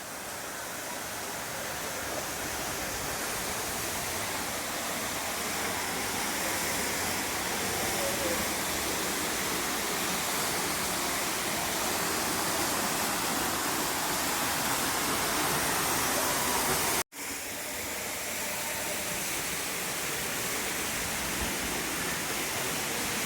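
Henrhyd Falls waterfall: a steady, even rush of falling water, cut off for an instant about seventeen seconds in and then resuming.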